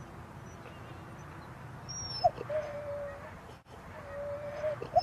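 Siberian husky whining twice, each time a quick rising note joined to a held, thin whine, over a steady rumble of wind on the microphone.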